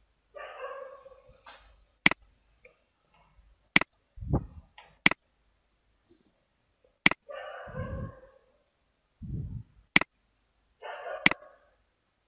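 Computer mouse clicking, six sharp clicks at uneven intervals while a control is dragged and placed. Short, quieter, muffled bursts of some other sound fall between the clicks.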